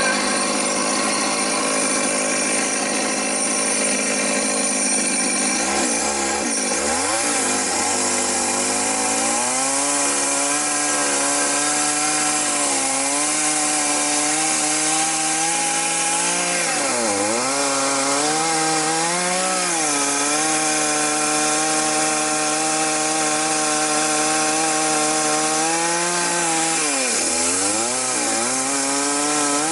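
Two-stroke chainsaw ripping a log lengthwise, cutting along the grain. The engine runs high for the first several seconds, then its pitch drops and holds lower as the chain bites into the wood, sagging briefly a few times under load.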